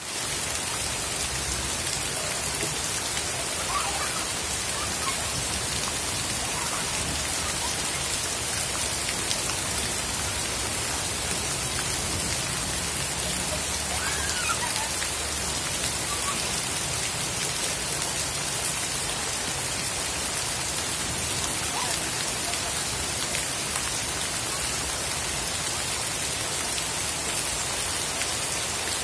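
Heavy rain falling steadily onto a flooded paved path and the surrounding leaves, an even, unbroken hiss.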